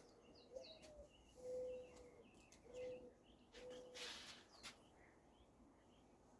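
A dove cooing: one note that lifts and falls, then three shorter steady coos. Small birds chirp faintly throughout, and there is a brief rustle about four seconds in.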